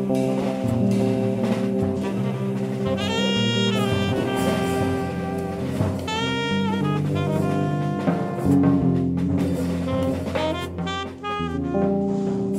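Jazz trio playing: saxophone melody lines with sustained notes over electric bass and a drum kit with cymbals.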